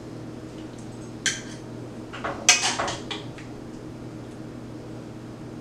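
Metal tongs clinking and scraping against a cast iron skillet and a plate as pieces of cooked chicken are lifted onto the plate. There is one clink about a second in, then a quick cluster of clatters about halfway through.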